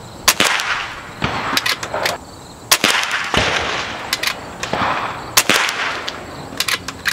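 Frequent sharp gunshots, often in quick pairs, each followed by a trailing echo across the shooting range. Among them is a shot from a .25 calibre Kral Puncher Jumbo PCP air rifle.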